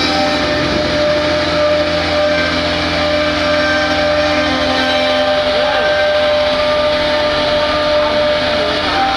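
CNC router running, a steady whine of several held tones over a dense noise; one tone wavers briefly up and down about halfway through.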